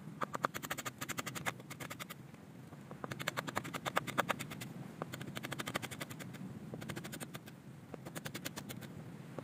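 Kitchen knife rapidly chopping small chili peppers on a wooden chopping board: runs of quick taps, several a second, broken by short pauses.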